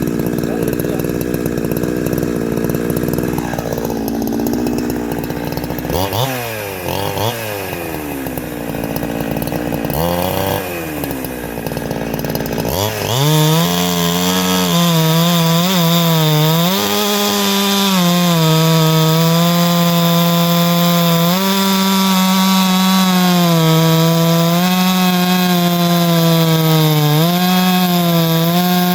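Two-stroke chainsaw fitted with a shotgun-style pipe muffler, running at a lower steady speed at first, then revved up and down a few times, then held at high revs from about halfway with small dips in pitch.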